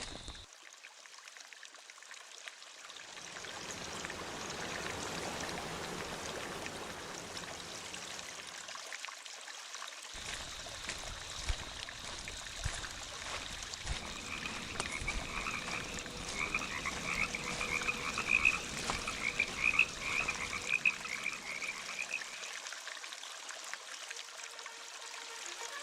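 Frogs croaking: a rapid run of repeated calls in the middle, over a steady hiss.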